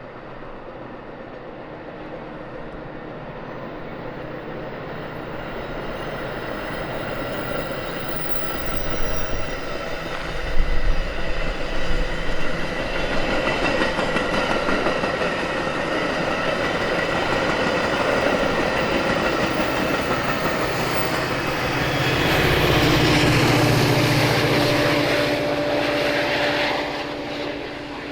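Metra commuter train approaching and passing: the rumble grows louder, wheels clatter over the rails about ten seconds in, and a steady hum rises near the end before the sound drops off.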